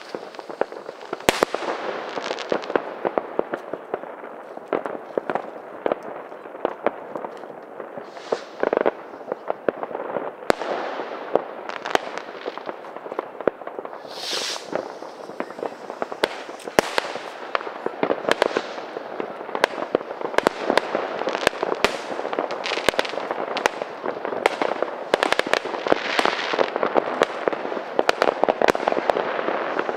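Many New Year's Eve fireworks and firecrackers going off at once: dense, continuous popping and banging, busier in the second half, with a brief whistle about halfway through.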